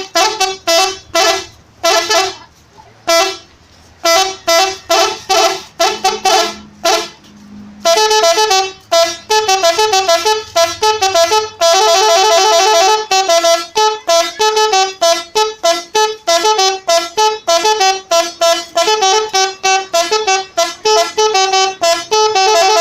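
Multi-tone telolet musical horn on a three-wheeled motorcycle playing a tune of short, rapid toots. It sounds in bursts with short gaps at first, then about eight seconds in breaks into a long, fast, almost unbroken run of changing notes.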